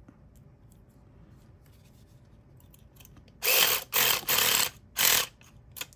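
Electric pumpkin-carving saw fitted as a lock pick, running in four short bursts with its fast reciprocating pick rattling in a lock's keyway, a little past halfway through.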